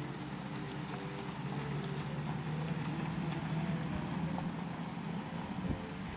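A motor vehicle engine running, a steady low hum that swells through the middle and eases off near the end.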